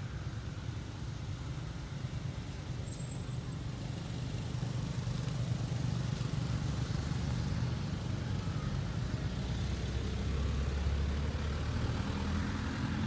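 Low, steady rumble of a motor vehicle engine running, growing louder over the second half.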